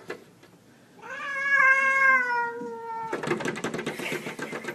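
A cat's long, drawn-out meow lasting about two seconds, falling slightly in pitch. Right after it, a rapid run of clicking or tapping begins.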